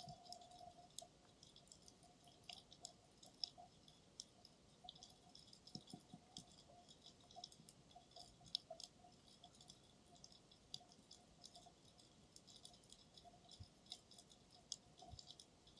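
Faint underwater crackle of scattered, irregular clicks, picked up through a 360 camera's dive case resting on the sea floor, over a faint steady hum.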